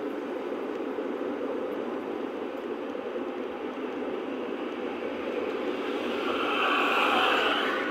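Road and engine noise heard inside a car cruising on a motorway: a steady rushing hum that swells louder and brighter for a second or so near the end.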